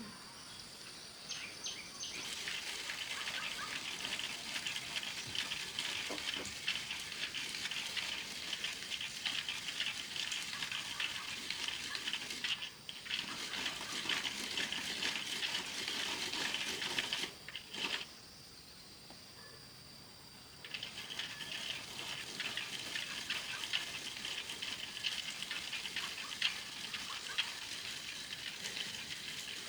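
Food sizzling and crackling in hot oil in a pan, a steady dense spatter of small pops. It breaks off briefly twice, the longer gap lasting about three seconds.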